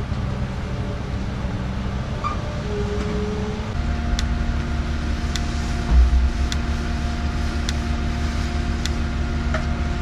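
Farm machinery engine running steadily, a low rumble with a steady hum. From about four seconds in, light regular clicks come about once a second, and there is a low thump near six seconds.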